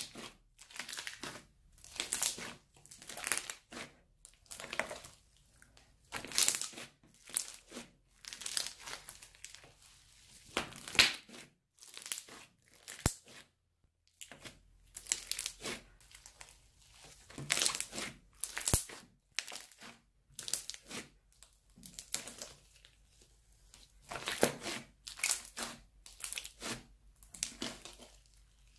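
Crunchy slime full of small foam beads being squeezed, stretched and pressed by hand, crackling in repeated bursts about once a second, with a short lull about halfway.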